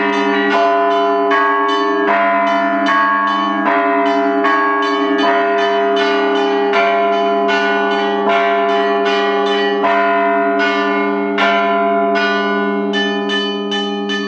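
Russian Orthodox church bells ringing: quick, rhythmic strikes of the smaller bells, two to three a second, over the lingering hum of the larger bells.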